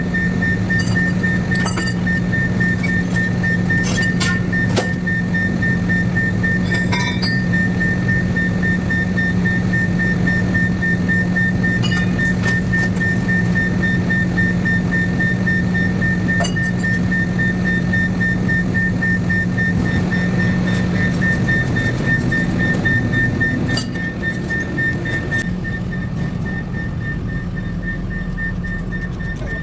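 An engine running steadily with a constant hum, and a few sharp metallic knocks; the sound drops a little about 24 seconds in.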